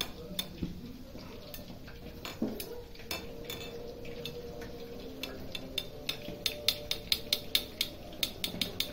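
Metal spoon clinking against a black kadai while stirring chicken pieces deep-frying in oil. The clinks are scattered at first, then come quickly and fairly evenly, several a second, from about halfway through.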